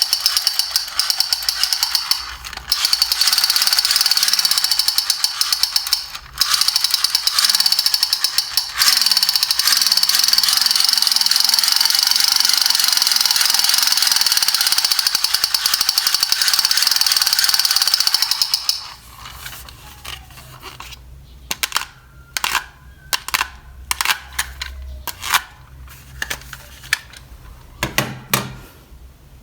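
Battery-powered toy gun running its rapid electronic firing rattle, held for several seconds at a time with brief breaks, stopping about nineteen seconds in. Scattered sharp clicks and taps follow.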